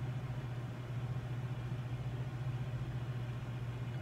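A steady low hum with a faint hiss, even throughout, with no other sounds.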